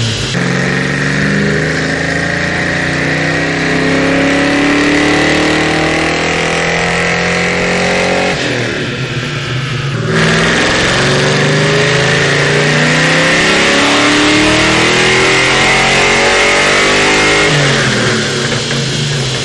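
5.0 Ford Mustang V8 running under full throttle through headers and aftermarket exhaust, pitch climbing steadily for about eight seconds, dropping briefly as it shifts, then climbing again before it backs off near the end.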